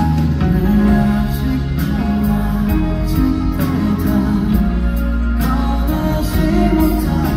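Slow, tender ballad performed live: a man singing into a microphone over a soft backing track of sustained keyboard-like chords.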